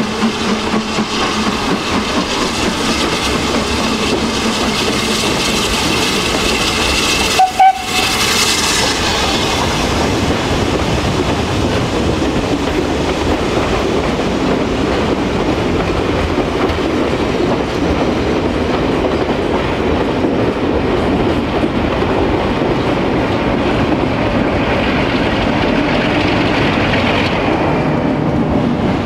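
BR Standard Class 9F 2-10-0 steam locomotive No. 92212 working a passenger train past at close range, then its coaches rolling by, a steady loud mix of engine and wheel noise. There is a brief very loud burst about seven and a half seconds in.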